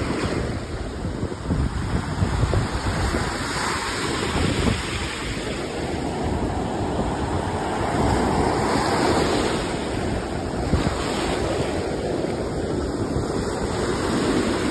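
Ocean surf breaking and washing up a sandy beach, a steady rushing wash that swells louder about halfway through and again near the end. Wind buffets the microphone with a low rumble.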